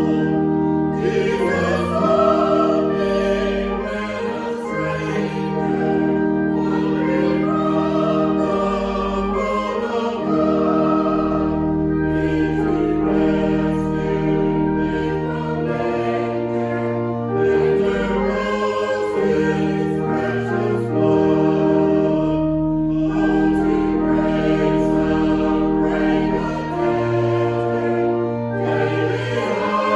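A hymn sung by voices over held accompaniment chords and a sustained bass.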